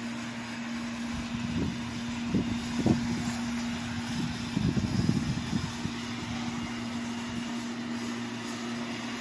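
Outdoor street background with a steady low hum, broken by a few brief low rumbles about two to three seconds in and again around five seconds.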